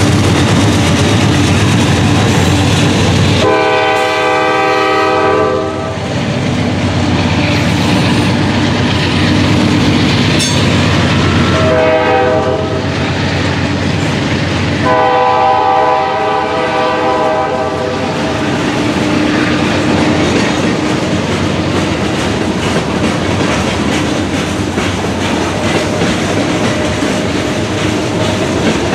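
Freight train passing close by, with a steady rumble and wheel clatter over the rail joints. Its locomotive's multi-chime air horn sounds three times: a long blast about four seconds in, a short one near the middle, then another long one.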